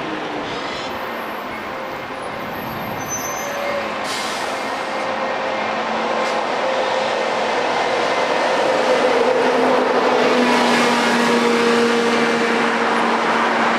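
Diesel double-decker bus approaching along the road and passing close by, its engine growing steadily louder with a steady hum.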